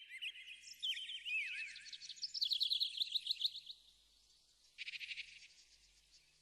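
Birdsong: several birds chirping in fast, high trills of quick sliding notes, busiest around the middle, with a short burst of chirps near the end.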